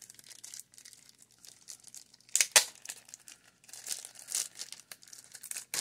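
Clear plastic bag around a HeroClix miniature crinkling as fingers work it open, with scattered sharp crackles, the loudest about two and a half seconds in.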